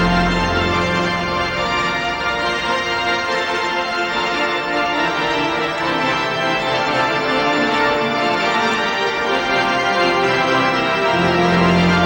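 Pipe organ playing slow, held chords. The deep bass notes stop about a second in and come back near the end, while the upper chords sound throughout.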